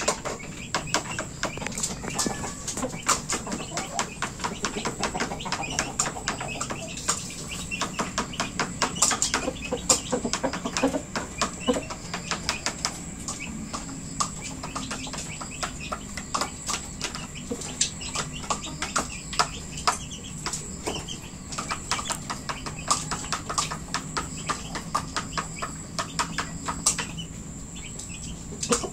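Chickens moving about and pecking in a coop yard: a stream of short, sharp taps and clicks, busiest in the first half, over a steady high-pitched whine.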